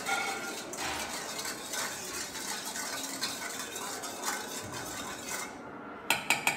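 A metal utensil stirring vinegar-and-oil salad dressing in a stainless steel mixing bowl, scraping and clinking against the bowl without a break. The stirring stops about five and a half seconds in, followed by a few quick, sharp metal taps.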